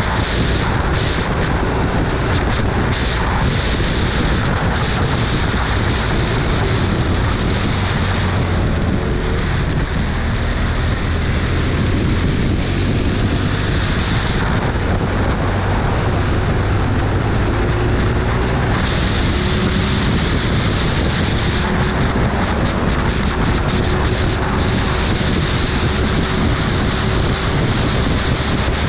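Heavy wind rushing over the microphone of a moving vehicle, with its engine faintly heard underneath, the engine's pitch drifting up and down with speed.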